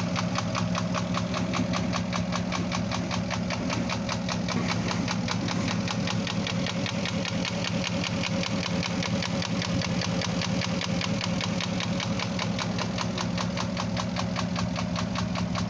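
Porsche Cayenne Turbo (955) twin-turbo V8 running at a steady idle with a rapid, even ticking knock. The mechanic suspects scored cylinders (piston scuffing), though an endoscope check reportedly found none, and the cam phasers or the timing drive are also suspected.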